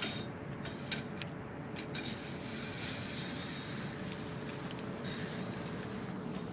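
Sharp metallic clicks and clacks, loudest at the start and about a second in, from a fall-protection lifeline traveller rolling along the steel cable and over its passthrough brackets, over a steady background hum.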